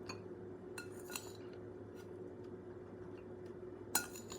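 Eating utensil tapping and scraping against a dish of fried rice: a few light, scattered clinks, with a louder one near the end, over a faint steady hum.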